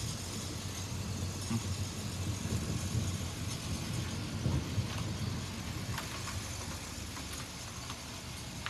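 Rolling thunder: a low rumble that slowly dies away, over a steady hiss.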